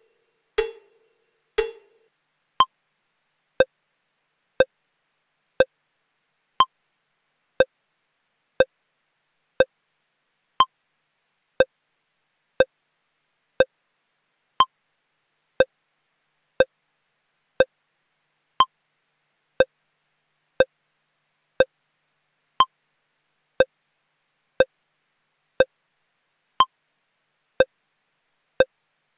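Short pitched electronic tick repeating steadily once a second, about two dozen times, from the holding-screen audio of a parliamentary TV feed. The first two seconds hold the last two fading notes of a music cue.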